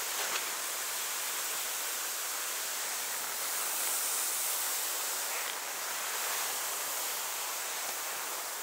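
Voile Hyper V6 BC fish-scale skis hissing steadily through powder snow on a downhill run, with little of the singing that fish-scale bases can make.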